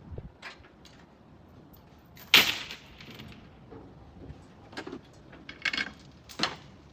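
A loud bang about two seconds in as the junked GMC Envoy being loaded hits against something, followed by a few lighter knocks and clunks.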